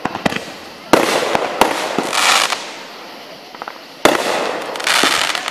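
Aerial fireworks shells bursting: two loud booms, about a second in and about four seconds in, each trailing off in a long echoing rumble. Crackling effects fizz after each burst, with a few smaller pops between them.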